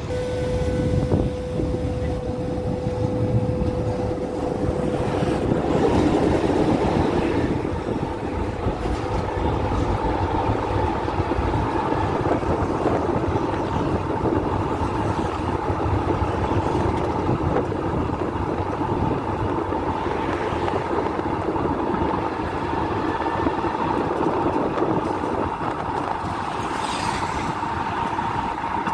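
Tram running along street rails: a continuous rumble of wheels and running gear. A steady higher hum comes in about a third of the way through and holds.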